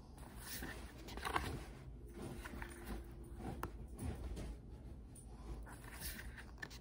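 Faint handling noise from a cardboard board book being held up and its pages turned, with soft scattered taps and rustles.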